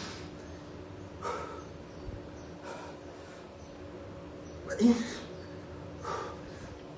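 A man's short, forceful breaths during push-ups, one puff with each rep, about four in all; the loudest comes about two-thirds of the way through. A steady low hum runs underneath.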